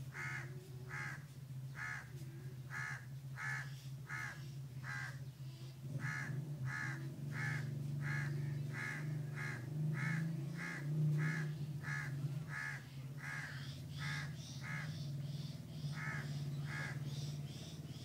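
A steady low buzzing hum from a honeybee swarm clustered on its comb, swelling somewhat midway. Over it, a bird calls over and over in short, evenly spaced calls, about one and a half a second, with a couple of brief pauses.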